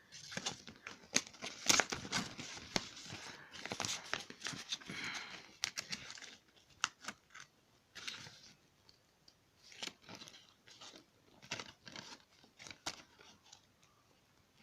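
Paper cover sleeve rustling and crinkling against a plastic DVD case, with many sharp clicks of the case, as the double-sided cover is handled. The rustling is dense for about the first six seconds, then thins to scattered clicks and short rustles.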